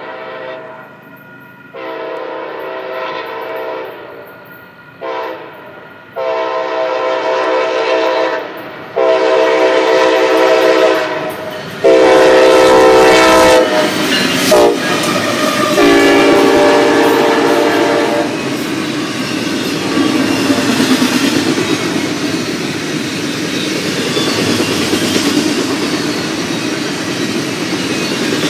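Union Pacific SD70AH diesel locomotive's air horn sounding a series of long blasts with a couple of short ones, getting louder as the train approaches. The horn stops about two-thirds of the way in, and then the locomotives and double-stack container cars roll past with a steady loud noise of wheels on rails.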